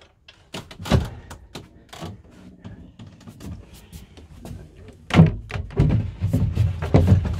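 Knocks and thuds of a small yacht's companionway steps being lifted out and set down to uncover the inboard engine, with scattered handling clatter; one sharp knock about a second in and a run of heavier thuds from about five seconds in.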